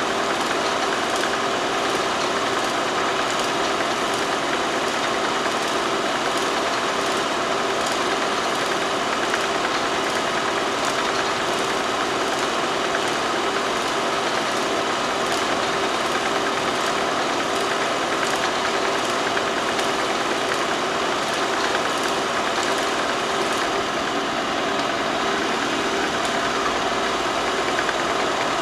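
A film projector running: a steady mechanical whirr with a low hum and faint, evenly spaced ticks.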